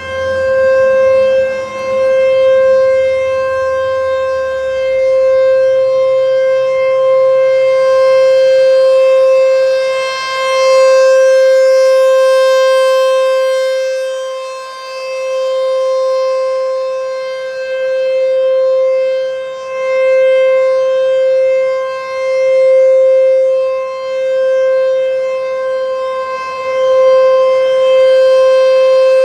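American Signal T-128 outdoor warning siren sounding its steady alert tone at full, unchanging pitch. Its loudness swells and fades every few seconds as the rotating horn sweeps past.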